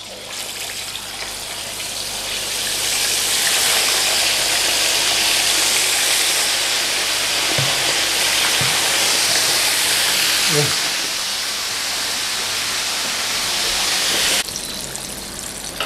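Halved Indian mackerel deep-frying in a pan of hot oil: a loud, steady sizzle that builds over the first few seconds and drops off suddenly near the end.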